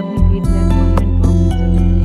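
Instrumental background music with a steady low bass and a sequence of clear notes.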